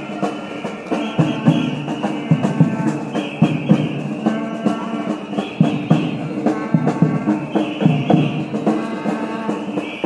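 Rhythmic music with drum beats under sustained pitched tones, a short phrase repeating about every two seconds.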